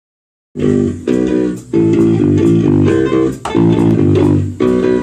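Band music starting about half a second in: guitar and bass playing a run of chord phrases, each broken by a short pause, as the song's instrumental intro.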